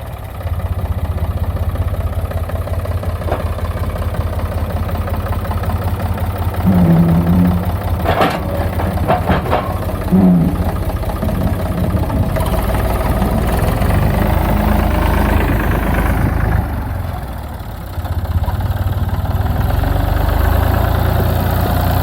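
Tractor engine running steadily, with a few short knocks and clatters near the middle.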